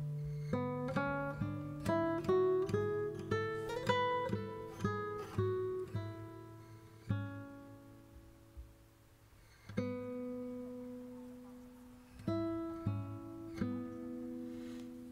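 Background music on acoustic guitar: a quick run of plucked single notes that climbs in pitch and falls back over the first six seconds, then a few slower notes left ringing.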